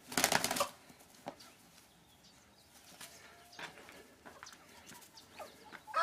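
Two fighting roosters clash in a burst of rapid wing-flapping lasting less than a second at the start, followed by only faint clucks and scuffling.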